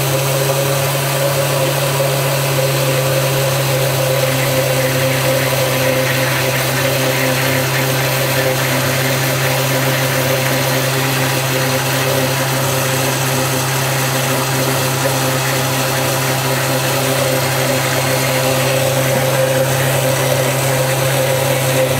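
Oster countertop blender running steadily at a constant speed, mixing a liquid chocolate-milk base.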